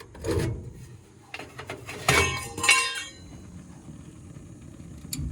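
Hard metallic clinks and clatter, a burst just after the start and a busier run of rattling about two to three seconds in, then a single sharp click near the end.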